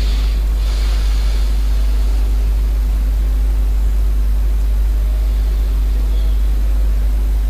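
Steady low rumbling hum with a faint steady tone above it, unchanging throughout: background noise of the voice recording.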